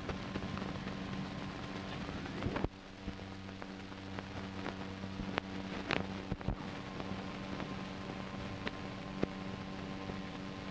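Surface noise of an old optical film soundtrack: steady hiss and low hum with scattered clicks and pops. A sharp click comes about two and a half seconds in, after which the background noise drops a little.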